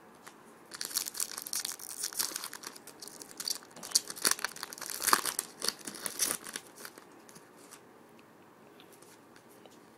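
Foil wrapper of a trading-card pack crinkling and tearing as it is opened and handled, a run of crisp crackles that dies down after about seven seconds.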